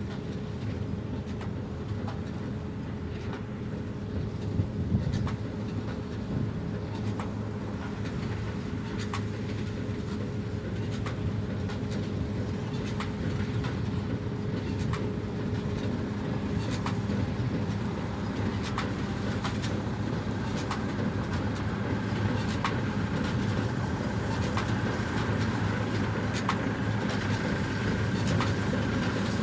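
John Deere 1052 combine harvester running under load as it cuts and threshes grain, with a regular ticking from its machinery, growing slowly louder as it approaches. A thin steady whine joins in about halfway through.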